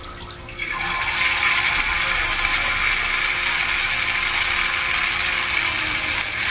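Spoonfuls of pumpkin fritter batter sizzling in hot oil in a frying pan. The hiss starts about a second in as the first spoonful drops into the oil, then holds steady.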